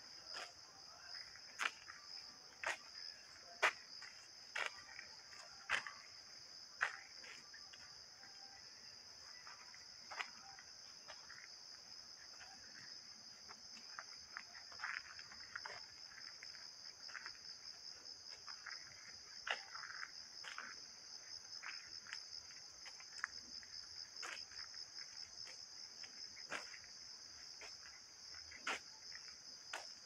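Insects trilling steadily at a high pitch, with the crunch of footsteps on a dirt forest path about once a second, the steps loudest in the first several seconds.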